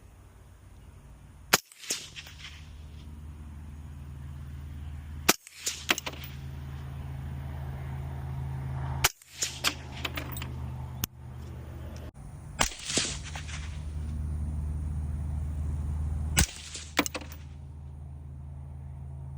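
Five suppressed 5.56 rifle shots through a Diligent Defense Enticer L suppressor on a 16-inch barrel, about four seconds apart, each a sharp crack with a short echo trailing off. A steady low hum sits between the shots.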